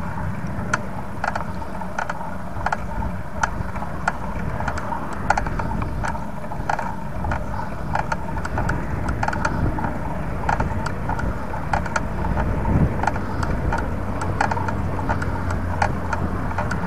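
Bicycle being ridden, with irregular sharp clicks and rattles from the bike's parts, roughly two or three a second, over a steady low rumble of tyres and wind on the action camera's microphone.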